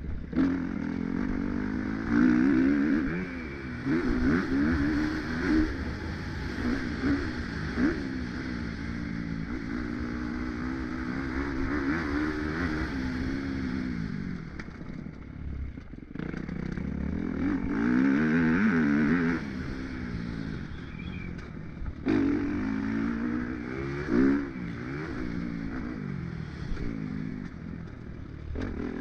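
Motocross bike engine heard from onboard, revving up and down over and over as the rider accelerates out of corners and down the straights. The throttle shuts off briefly twice, about halfway through and again a few seconds later.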